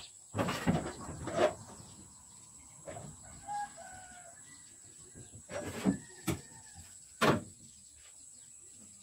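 Sharp metal knocks and clanks of hand tools against a steel car bonnet during dent pulling, in a cluster in the first second and a half and again around six and seven seconds in. A rooster crows faintly between them, about three and a half seconds in.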